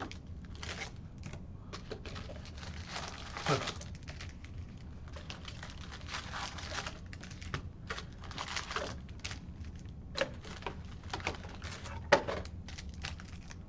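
Foil trading-card pack wrappers crinkling and rustling as packs are handled and torn open. Irregular bursts come with a few sharp clicks, the sharpest near the end.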